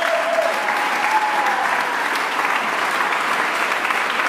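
An audience applauding, many hands clapping steadily, as the music stops right at the start.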